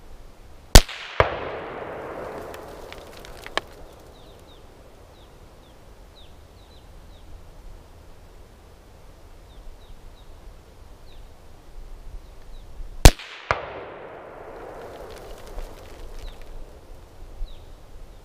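Two loud rifle shots from an AR-15-pattern rifle, about twelve seconds apart, fired one at a time while shooting a group. Each sharp crack is followed a split second later by a second crack and a fading echo.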